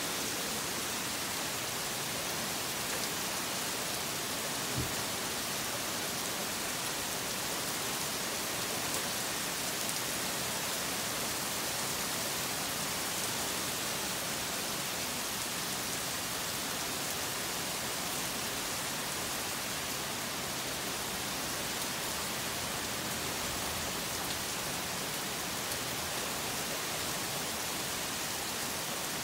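Hard rain falling in a steady, even hiss.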